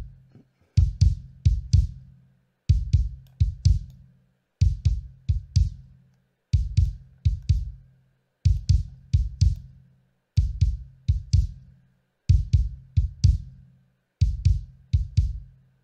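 Kick drum loop playing through a Pultec EQP-1A-style tube EQ emulation, its 60 Hz low shelf boosted and attenuated at once to tighten the boosted bottom end and stop it getting boomy. Four quick kicks, each with a sharp beater click, repeat about every two seconds, with a low boom ringing on briefly after each group.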